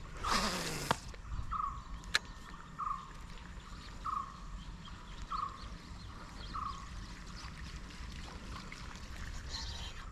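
Line whirring off a spinning reel during a cast, the whirr falling in pitch over about a second, followed by a sharp click about two seconds in. A short chirping animal call repeats about every second and a quarter in the background.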